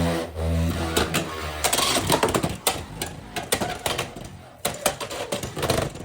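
Pegasus Blast Beyblade top spinning in a stadium: a steady low whir for about the first second and a half, then rapid irregular clattering and clicking as it wobbles and knocks around the stadium. The top is losing spin quickly after a tilted launch, which sets off its turbo gimmick.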